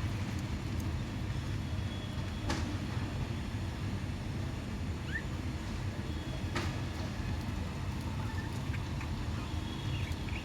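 Steady low rumble with two sharp clicks about four seconds apart, and one short, faint rising chirp from a budgie between them.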